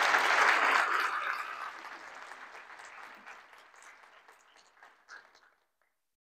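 Audience applauding, loudest at first and fading away steadily until it stops near the end.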